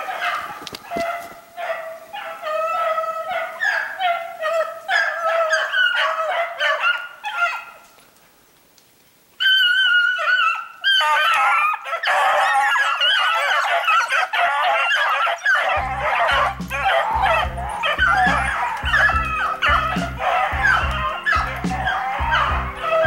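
A pack of hare hounds baying on a hare's track, many voices overlapping. The baying drops away briefly about a third of the way in, then comes back fuller. Music comes in underneath about two-thirds of the way through.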